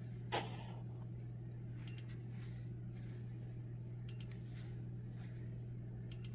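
Quiet room tone with a steady low hum, a brief soft tap about a third of a second in, and a few faint clicks as the plastic buttons of the clock's remote control are pressed to change the display colour.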